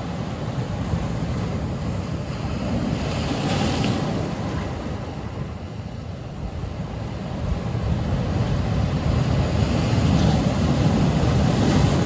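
Ocean surf breaking and washing over black lava boulders. The wash swells about four seconds in, then builds to its loudest crash near the end.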